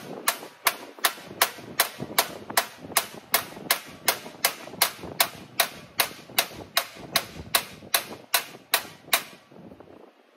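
Hammer striking a tuck in sheet metal against a stainless plate on a steel table, about three sharp metallic strikes a second, closing up the tuck to shrink the metal; the hammering stops about nine seconds in.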